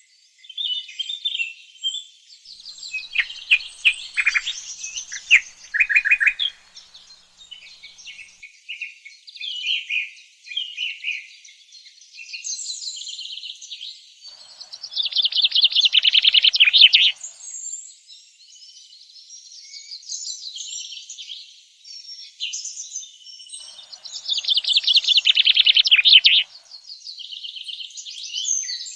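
Several songbirds singing and chirping in a varied mix of whistles and chirps, with two loud, rapid trilling phrases, one about halfway through and one near the end.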